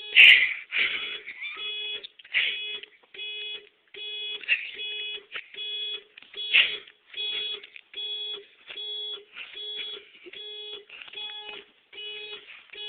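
Car alarm going off: a single steady tone pulsing on and off about twice a second.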